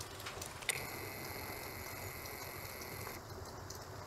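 Camera zoom motor: a click, then a steady high whine for about two and a half seconds that cuts off suddenly, over faint rain patter.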